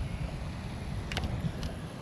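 Low, fluttering wind rumble on the microphone, with a few short clicks about a second in and again near the end.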